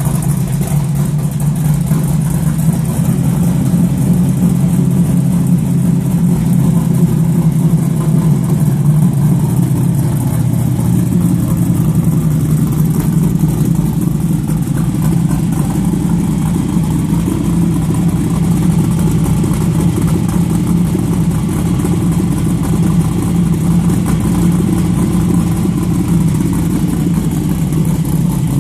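1970 Chevrolet Nova's engine idling steadily through a 3-inch exhaust, a low, even exhaust note with no revving.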